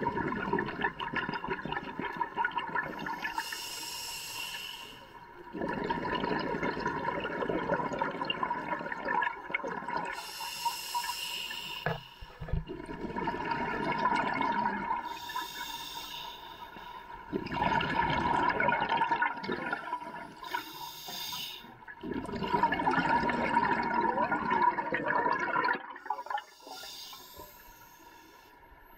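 Scuba diver breathing through a regulator underwater: short hissing inhalations through the demand valve alternate with longer rumbling bursts of exhaled bubbles, about five breaths.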